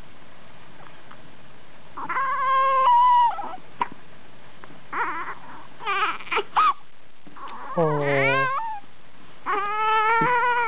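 A baby with the hiccups fussing and whimpering in about five high-pitched cries with pauses between them. Some cries are short and one rises in pitch; the longest come about two seconds in and at the end.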